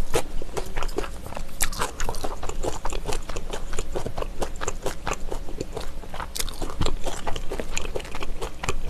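Close-miked chewing of thick-sliced raw trout sashimi: a dense, uneven run of small mouth clicks and smacks.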